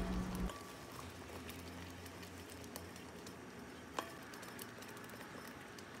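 Thick red pepper paste cooking down in a pot, bubbling faintly with scattered small pops and a couple of sharper pops about three and four seconds in, while a wooden spoon stirs it. Most of the paste's water has cooked off, so it bubbles in thick blobs and spits.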